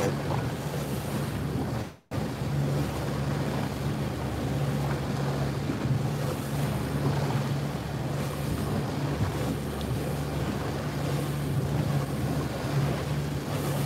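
A boat engine running steadily as a low hum, under wind buffeting the microphone and the wash of water. The sound cuts out for a moment about two seconds in.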